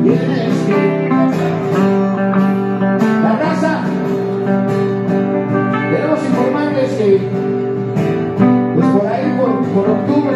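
Live acoustic rock music: acoustic guitar playing chords, with a voice singing at times.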